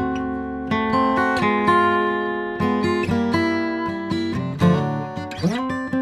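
Background music: acoustic guitar playing plucked notes and strums, with some bent notes.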